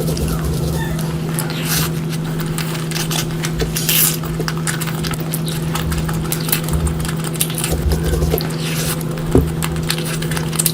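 Close-miked eating: wet chewing and lip-smacking as curry is eaten, heard as a string of small clicks and crackles with a few louder smacks, over a steady low hum.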